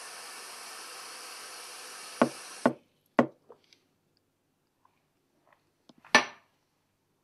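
A steady hiss that cuts off abruptly about two and a half seconds in, overlapped by three sharp knocks. A few faint ticks follow, then one last knock near the end, the loudest of all.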